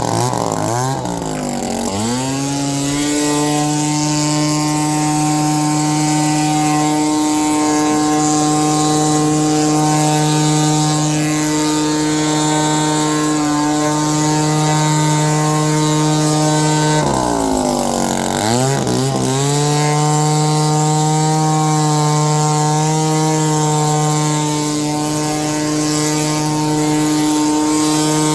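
Engine-powered leaf blower running at high throttle, blowing debris out of a trailer. Its engine speed drops and climbs back twice, near the start and again about two-thirds of the way through.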